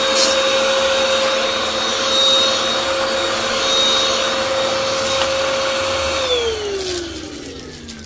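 Deerma VC20 cordless stick vacuum running with its motorised floor brush: a steady rush of air under a high motor whine. About six seconds in the motor winds down, its whine falling steadily in pitch as the sound fades.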